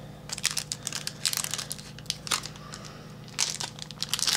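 Plastic wrapper of a trading card pack crinkling and crumpling as it is handled and opened, in several short crackly bursts.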